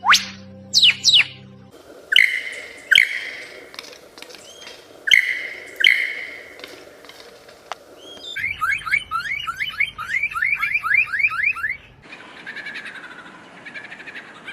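Mimicking birds calling and whistling in a series of short clips: quick rising whistles, then a few loud call notes, then a fast run of rising whistles, about four a second.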